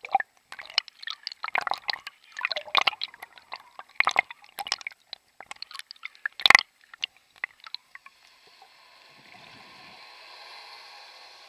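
Sea water splashing and gurgling around a camera dipping in and out at the surface, with many sharp crackles and one loud splash about six and a half seconds in. In the last few seconds this gives way to a steady underwater hiss.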